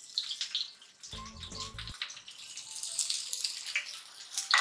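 Freshly chopped onions sizzling and crackling in hot oil on a heavy iron tawa, a steady hiss with many small pops.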